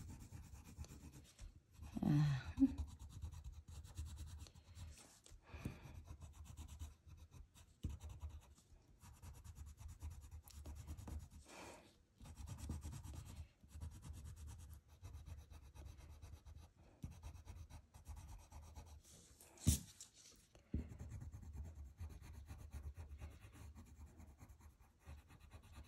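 Coloured pencil shading on paper: a soft, continuous scratching of quick back-and-forth strokes. A single sharp tap comes about twenty seconds in.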